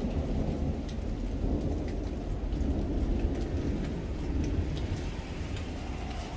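Steady rain falling with a low, continuous rumble of thunder underneath and scattered ticks of drops hitting nearby surfaces.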